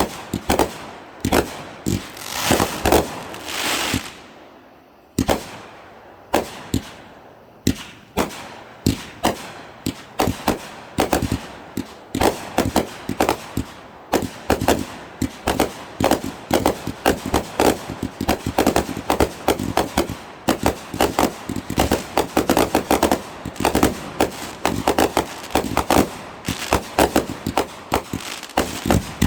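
Consumer fireworks going off: sharp bangs and pops, spaced out at first with a few seconds of hissing near the start, then coming fast and thick, several a second, for the rest.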